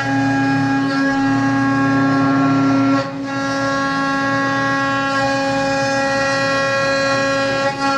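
Mini CNC milling machine running, its spindle and axis motors giving a steady whine of several held tones; the pitch pattern shifts briefly about three seconds in and again near the end as the machine's motion changes.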